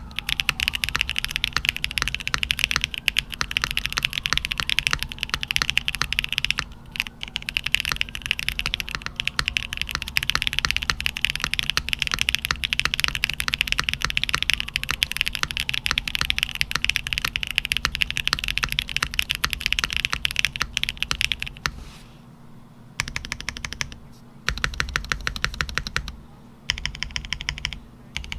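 Mode Sonnet mechanical keyboard with factory-lubed Kailh BCP switches on an aluminium plate, typed on fast and continuously. About three-quarters of the way through the typing breaks into a few short bursts with brief pauses between them.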